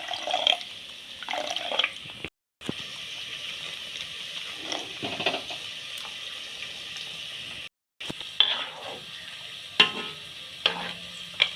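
Hot water in a pan of chicken curry, the liquid hissing and bubbling steadily while a spoon stirs and knocks against the pan now and then.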